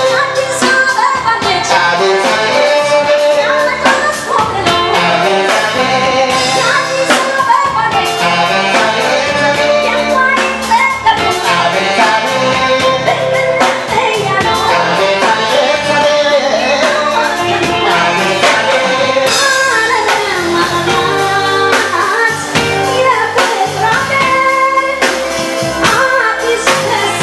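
Live band playing a song: a woman sings into a microphone over drum kit, electric guitar, bass guitar and keyboard, with a steady beat.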